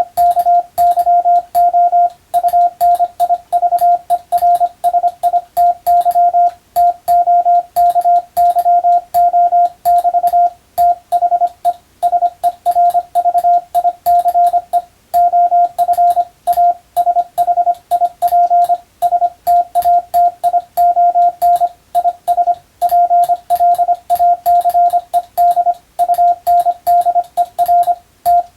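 Hand-keyed Morse code (CW): a single steady tone switched on and off in a quick, continuous run of dots and dashes, with short gaps between words, sending English-letter telegram practice text. A faint click marks each element.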